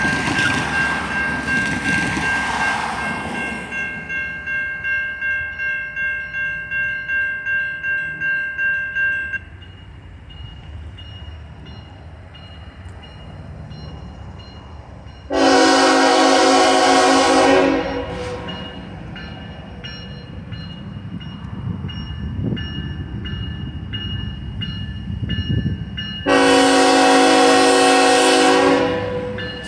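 Railroad crossing warning bell ringing about twice a second, stopping about nine seconds in once the gates are down; a car drives past in the first few seconds. Then the approaching CSX locomotive's air horn sounds two long blasts about ten seconds apart, over a low rumble.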